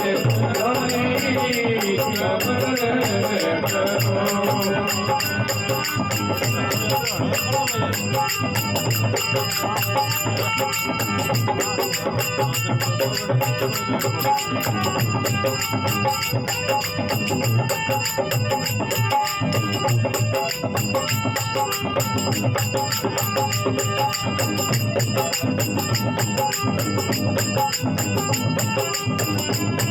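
Rajasthani bhajan music, mostly instrumental: fast, continuous jingling percussion over steady held tones, with a gliding melodic line in the first few seconds.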